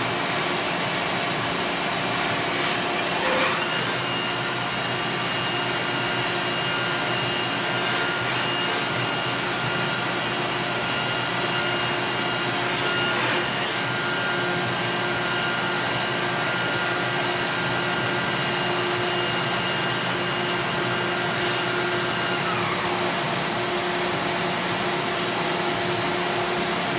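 Doosan DNM5700S vertical machining center running a program: a steady mechanical hum with high whining tones that come in a few seconds in and glide down and stop about three-quarters of the way through, with a few sharp clicks several seconds apart.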